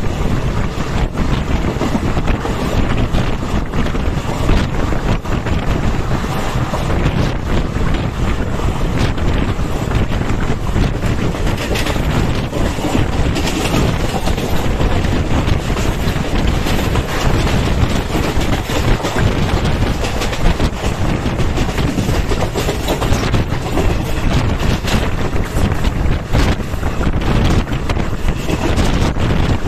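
Wind buffeting the microphone at the open window of a moving Indian Railways train, with the train's steady running noise underneath.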